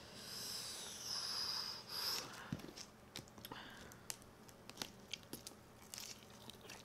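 Bone-in chicken wings being handled and bitten into: a soft rustle for the first two seconds, then a string of faint, sharp crunching and tearing clicks.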